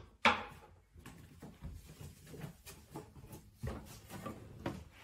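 Handling noise: one sharp knock just after the start, then scattered soft knocks, rustling and footfalls on a wooden floor as a person carries a plush toy dog across the room.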